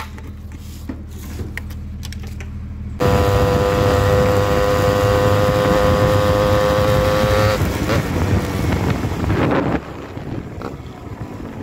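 Motorcycle engine running at a low idle, then a sudden loud, high, steady rev held for about four seconds before it falls away.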